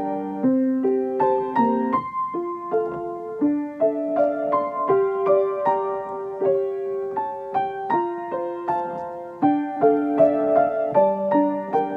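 Piano playing a slow melody over held chords, notes struck about twice a second and left ringing into one another.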